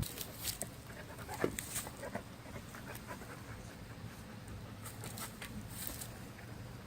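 A dog making a series of short, sharp sneeze- or cough-like huffs, several in the first two seconds and a few more about five seconds in.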